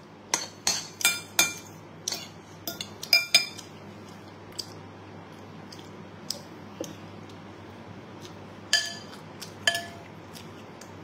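Metal spoon clinking against a ceramic bowl while eating: a quick run of clinks in the first three seconds or so, sparser ones after, and two more near the end.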